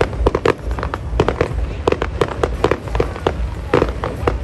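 Fireworks going off in rapid succession: many overlapping bangs and pops, several a second, over a continuous low rumble.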